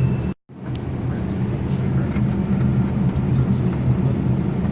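Steady low drone of an idling vehicle engine, cutting out completely for a moment about half a second in.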